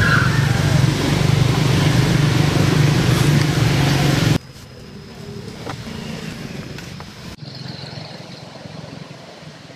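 A motor vehicle engine running steadily with a strong low hum, cut off abruptly about four and a half seconds in and followed by much quieter background noise.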